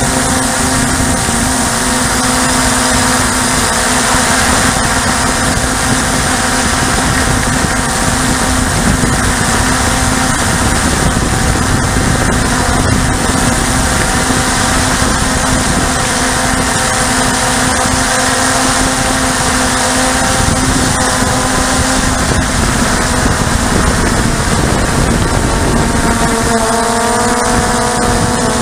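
RC model aircraft's motor and propeller running steadily, picked up by the aircraft's own onboard camera, with heavy air rush over the microphone. The motor's hum holds one pitch and then changes pitch a couple of seconds before the end.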